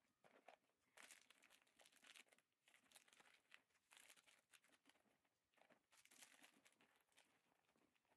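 Faint, irregular crinkling and rustling as small cosmetic items and their packaging are stuffed back into a small zippered fabric cosmetic case, starting about a second in.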